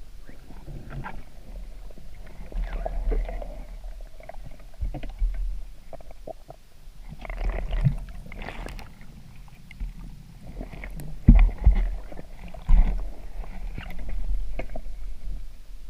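Muffled underwater sound heard through a waterproof camera housing during a spearfishing dive: a steady low rumble with irregular knocks and swishes of water movement.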